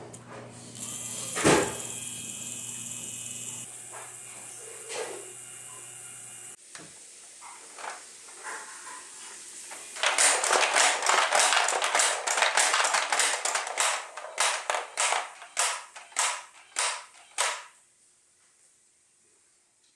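Small motors of a Robotis OLLO robot-kit pitching machine running with a steady hum. A single sharp knock comes about 1.5 s in. From about 10 s to 17.5 s there is a long run of rapid plastic clattering, which then stops.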